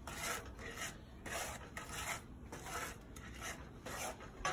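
A wooden spoon scraping across the bottom of a cast iron skillet as it stirs a thick butter-and-sugar caramel sauce, in repeated strokes a little over two a second.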